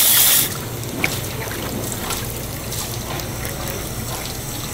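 Rushing water cuts off about half a second in, leaving water trickling and dripping with scattered small clicks and knocks over a steady low hum.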